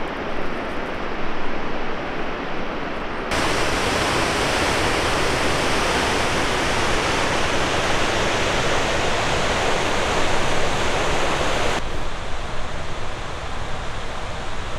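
Steady rushing noise that changes abruptly twice: it becomes louder and brighter about three seconds in and drops back near twelve seconds.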